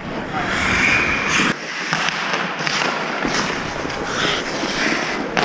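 Ice hockey game sounds: skate blades scraping and carving on ice, with sharp clicks and clacks of sticks and puck.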